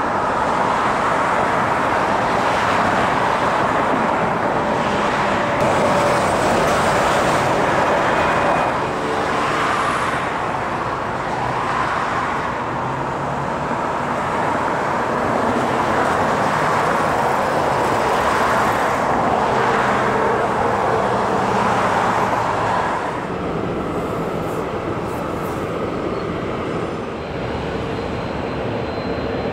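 Turbofan engines of landing business jets: a steady jet rush and whine on approach and rollout. It drops somewhat and changes about three-quarters of the way through.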